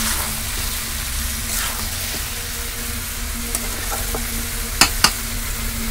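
Chicken curry pieces frying in masala in an iron kadai, sizzling steadily while a spatula stirs them. Two sharp knocks of the spatula against the pan come a little before the end.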